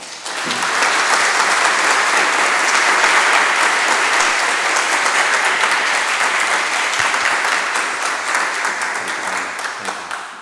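Audience applauding. The clapping swells within the first second, holds steady and fades away near the end.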